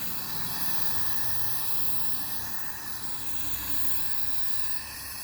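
Steady hiss of a gas torch flame used to heat a washing machine's seized steel shaft pins.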